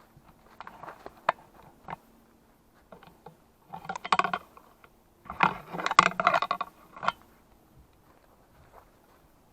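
Rattling and clinking of small hard objects being handled, in three bursts of quick sharp clicks.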